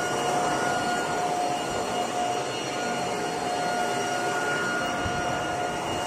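Ryobi RY18BVXA 18 V brushless cordless leaf blower-vac running steadily in blow mode at its lowest speed: a steady high fan whine over a rush of air.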